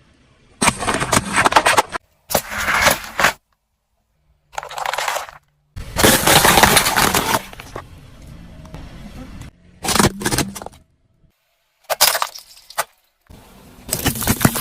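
Plastic toys cracking and crunching as they are crushed under a car's tyre, in about seven separate bursts cut apart by sudden silences; the longest and loudest crunch comes near the middle.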